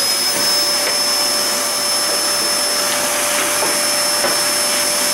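Vacuum cleaner running steadily with a high whine and hiss, its brush nozzle sucking fluff and dust out of the inside of a tumble dryer, with a few faint clicks along the way.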